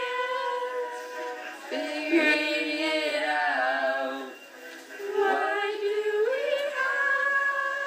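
Singing: voices holding long sustained notes, with a short break about four and a half seconds in.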